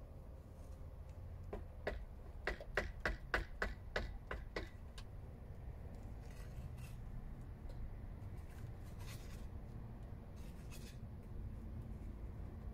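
A quick run of about ten sharp taps, roughly three a second, from a hand tool knocking on masonry, followed by a few softer scrapes. A low steady rumble lies underneath.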